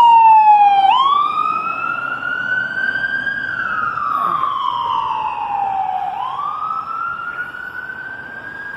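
Ambulance siren wailing, its pitch sliding slowly down and up about once every five to six seconds, loudest at first and fading as it goes on.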